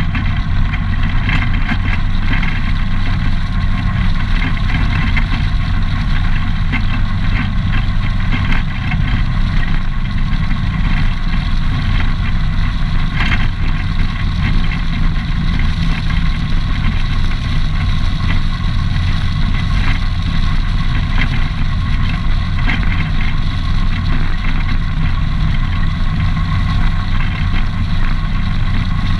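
ATV engine running at a steady cruising speed, with its tyres rolling over a gravel road.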